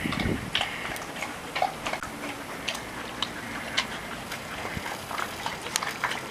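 Collies at a water bowl: scattered light clicks and ticks from a dog lapping water and from nails tapping on concrete.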